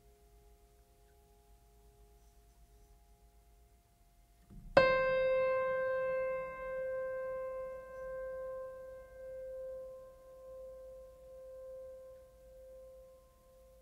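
Background music: a single piano note is struck about five seconds in and rings on, fading slowly with a gentle waver. Before it, only faint held tones are heard.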